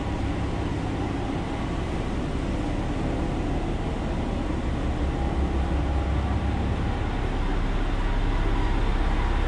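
Diesel railcar engine idling at a standstill, a steady low hum heard inside the passenger cabin that swells slightly about halfway through.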